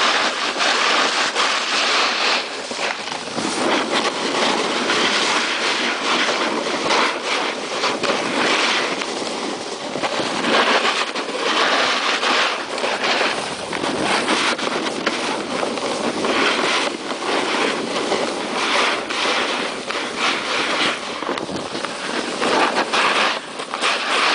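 Snowboard sliding and scraping over packed snow at speed: a continuous loud rough hiss that rises and falls in loudness, broken by many short rattling scrapes.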